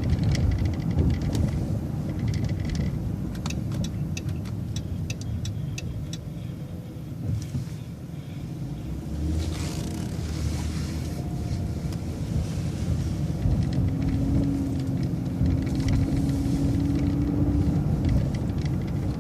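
City transit bus running with a steady low rumble, a regular ticking of the turn signal for the first several seconds, then a brief easing as it slows and a steady whine from past the middle as it pulls away.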